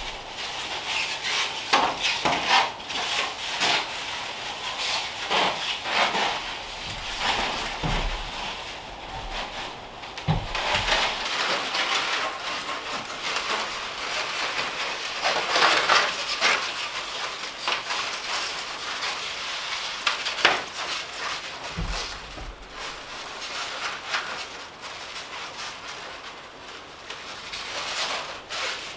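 Rafter vent baffle being pushed and slid into place between wooden roof rafters, rubbing and scraping against the wood and sheathing, with irregular knocks and a few dull thumps.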